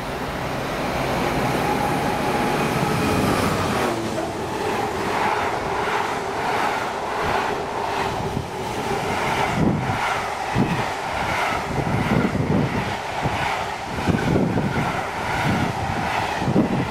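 A diesel-hauled freight train passes at speed. The locomotive's engine and wheel noise builds as it comes up and goes by, and from about four seconds in a long rake of empty container flat wagons rattles past with a rhythmic clatter of wheels on the track.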